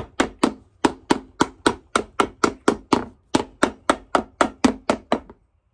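A hammer striking rapidly and steadily, about four blows a second with brief breaks, as leather is hammered into place in the shank area of a boot's sole; the blows stop shortly before the end.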